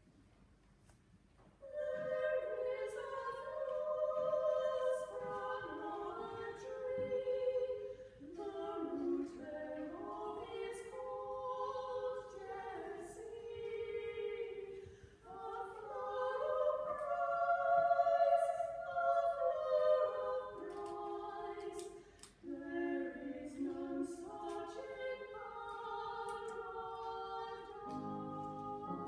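Two women's voices singing a slow duet unaccompanied, coming in about two seconds in. Near the end a piano joins in.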